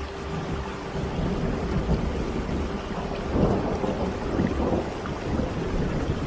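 Steady rain with thunder rumbling, the rumble swelling louder about halfway through.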